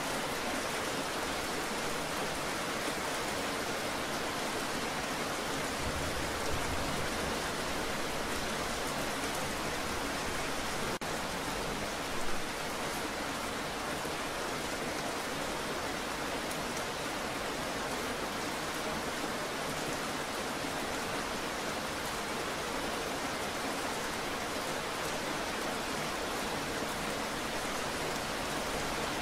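Steady rain falling and splashing on a wet surface: an even, unbroken hiss of many drops.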